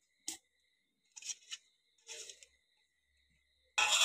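Faint soft clicks and squishes of fingers pressing boiled mashed potato into a steel bowl, then a louder scraping, rustling handling noise near the end.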